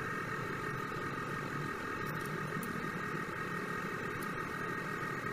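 A steady mechanical hum with a constant high-pitched whine and a few faint clicks.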